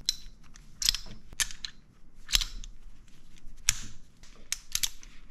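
Metal shells being loaded into the cylinder of a full-metal King Arms gas airsoft revolver: a series of sharp metallic clicks at irregular spacing, coming closer together near the end.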